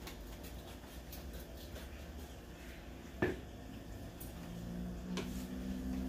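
Quiet kitchen room tone with a low hum and faint ticks, broken by one sharp knock about three seconds in; a low steady hum grows in the last second or two.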